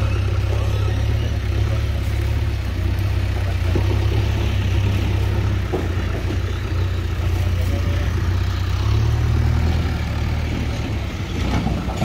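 Diesel engine of heavy machinery running close by: a steady low drone that shifts slightly in pitch a couple of times.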